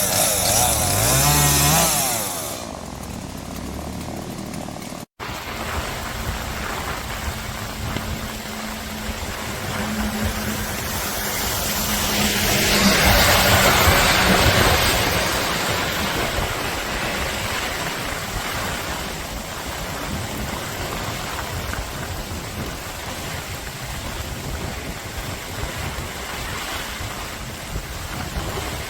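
A small engine revving up at the start. After a sudden cut, a steady rushing noise of wind or water follows, with a low steady hum under its first half; the rushing swells and fades about halfway through.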